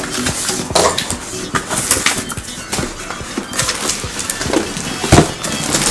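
Cardboard shipping box being opened by hand: flaps scraping and rustling, a shrink-wrapped boxed figure sliding out against the cardboard, with scattered knocks and one louder thump about five seconds in.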